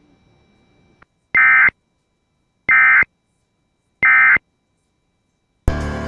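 Emergency Alert System end-of-message data signal: three short bursts of warbling digital tones, evenly spaced about a second and a third apart, marking the end of the tornado warning broadcast.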